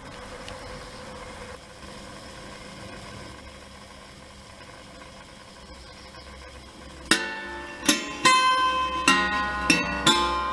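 Kinetic sound sculpture: a faint steady hum, then, about seven seconds in, its moving arm starts plucking the strings stretched over its board. About six plucked notes in the last three seconds, each ringing on, zither-like.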